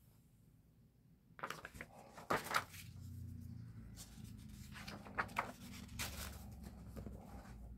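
Large art-book pages being turned by hand: paper rustling and flapping in two bouts, the first and loudest about a second and a half in, the second around five to six seconds. A low hum runs underneath in the second half.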